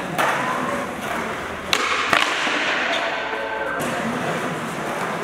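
Skateboard rolling on a smooth sports-hall floor, with two sharp cracks about half a second apart a couple of seconds in: the tail popping and the board landing a flatground trick.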